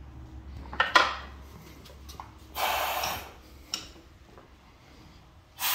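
Metal shock parts clinking as they are handled on a steel workbench, then compressed air hissing in two short bursts about three seconds apart.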